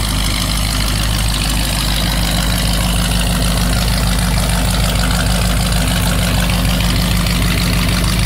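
1977 Mercury Marquis V8 idling steadily at about 500–600 rpm, heard at the tailpipe. Its fast idle has just kicked down and the engine is still warming up from cold.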